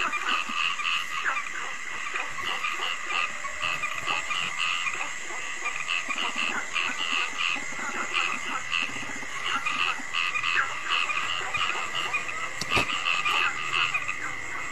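Frogs calling in a night chorus, short calls repeating a few times a second over a steady high-pitched buzz. A single sharp click about thirteen seconds in.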